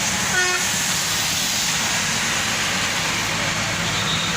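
A bus horn gives one short toot about half a second in, over a steady, loud background din.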